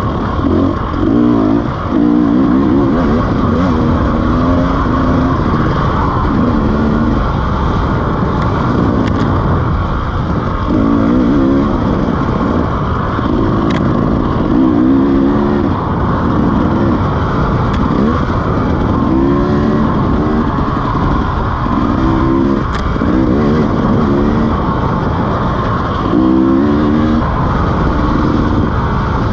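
KTM 300 two-stroke enduro motorcycle engine under way on dirt singletrack, revving up and down over and over as the throttle is opened and closed through the turns.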